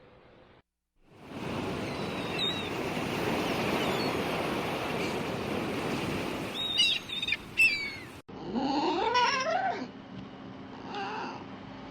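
Cat meowing: a few short high-pitched mews, then after a brief cut a longer meow that rises in pitch, and a fainter one near the end. Before the mews a steady hiss-like noise runs for several seconds.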